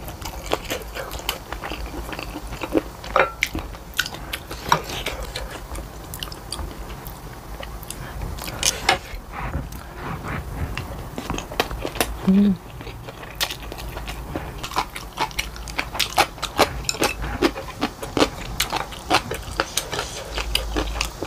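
Close-miked eating sounds: chewing and mouth smacks with many small, sharp clicks, as rice and spicy chicken feet are eaten. A brief hummed voice sound comes about twelve seconds in.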